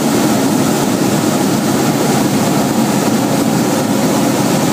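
Hot-air balloon's propane burner firing in one long, steady, loud blast.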